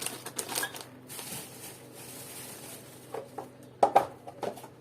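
Rustling of packaging while household items are handled, then a couple of sharp clacks about four seconds in as things are knocked or set down.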